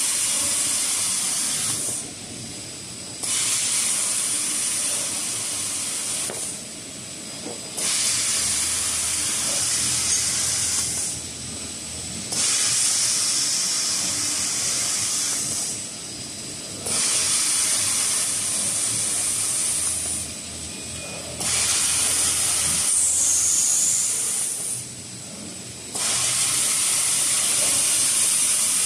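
Maxi roll tissue paper band saw cutting machine running: a loud hiss about three seconds long comes back every four and a half seconds or so as the band saw cuts through each tissue log, over a steady low machine noise.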